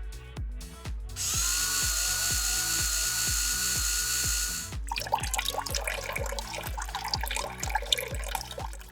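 A power tool's motor spins up and runs steadily for about three and a half seconds, then stops. Irregular crackling and clicking follow, over background music with a steady beat.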